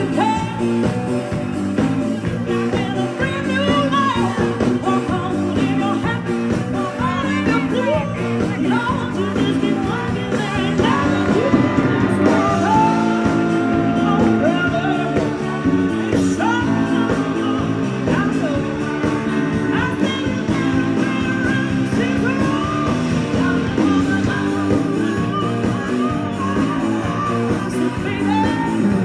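Live blues-rock band: a woman singing with a strong, wavering voice over electric guitar, keyboard and drums.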